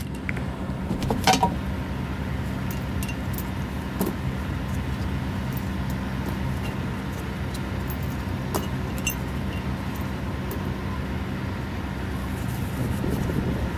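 Small metal hardware clinking as it is handled on a brake rotor hub and set down, with one sharp clink about a second in and a few lighter ones later, over a steady low hum.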